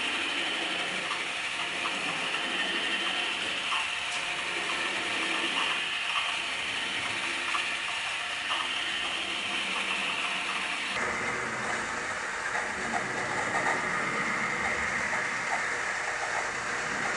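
Motor-driven pintograph (drawing machine) running: its two drive discs turning with a steady whir, and the jointed arm linkage ticking faintly and irregularly as the pen traces curves. The whir changes suddenly about two-thirds of the way through, dropping lower with more rumble.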